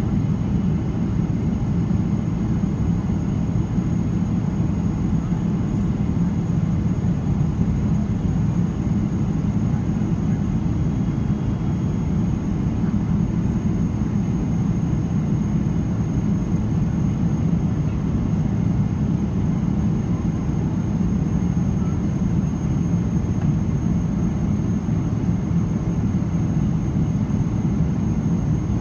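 Cabin noise inside a Boeing 777-300ER in flight: the steady low rumble of its GE90-115B engines and airflow, with a faint steady high whine.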